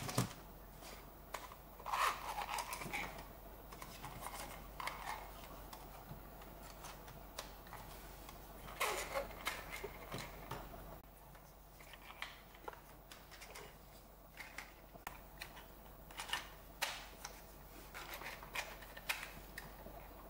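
Hard 3D-printed plastic engine-model parts handled and fitted together: light, scattered clicks and scraping as a piston-and-crankshaft assembly is pushed into two finned plastic cylinders.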